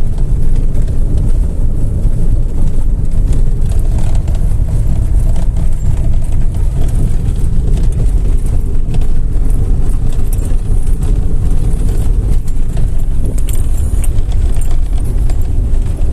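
Road and engine rumble inside the cabin of a moving 2007 Hyundai Tucson, with faint scattered knocks: the knock the driver feels through a shaking steering wheel and suspects is in the steering column.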